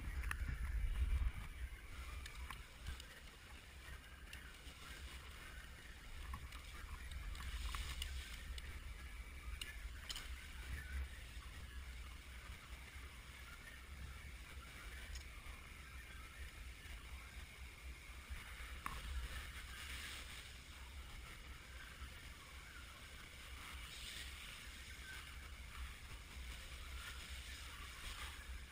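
Low rumble from a helmet-mounted camera moving with the wearer, with faint clicks and rustles of hands working hoses and wiring in a jet ski's engine bay, and a louder bump about a second in.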